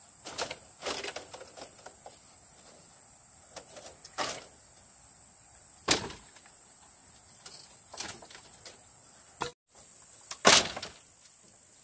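Dry bamboo slats and poles knocking and clattering as they are handled, in scattered separate knocks; a sharp one comes about six seconds in and the loudest just after ten seconds.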